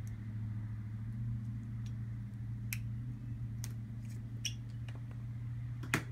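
A steady low hum runs throughout, with a few light clicks from pliers and plastic fuel-line tubing being handled on a wire. The sharpest click comes near the end.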